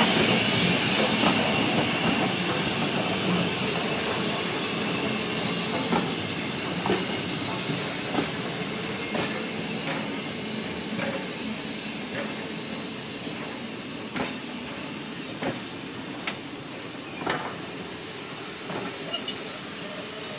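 Steam train departing: a steady hiss of steam that slowly fades as the locomotive draws away, then the coaches' wheels clicking over rail joints about once a second as they roll past.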